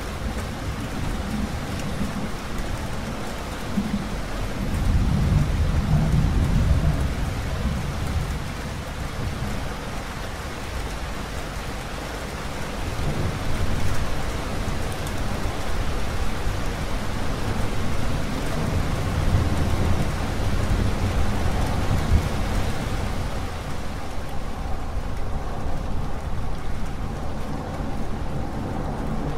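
Steady heavy rain with several low rumbles of thunder rolling through, the strongest about five seconds in and others around the middle of the stretch.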